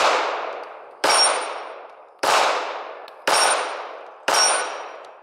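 Five 9mm shots from a SCCY DVG-1 striker-fired micro-compact pistol, fired about one a second, each with a long echoing tail. A high ring follows three of them.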